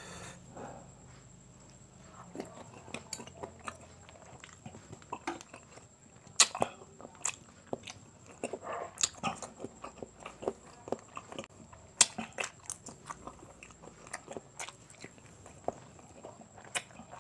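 Close-up eating sounds of quail balut: sharp clicks and cracks as the eggshells are peeled over a metal spoon, scattered irregularly with a few louder snaps, then chewing with a full mouth.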